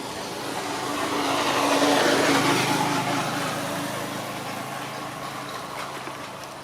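A motor vehicle passing by: its engine hum and road noise grow louder to a peak about two seconds in, then fade away.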